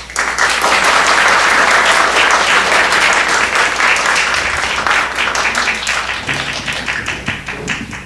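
Church congregation applauding. The clapping starts suddenly and thins out into scattered separate claps near the end.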